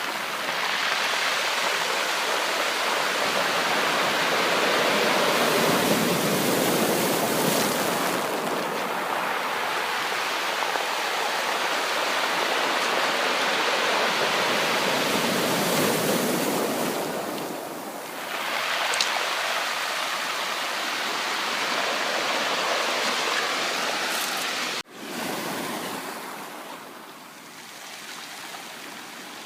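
Sea surf: waves breaking and washing up the shore in a steady rush that swells and eases. Near the end the sound cuts out for an instant and comes back quieter.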